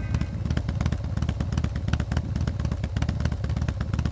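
Motorcycle engine running: a fast, even beat of firing pulses at a steady level.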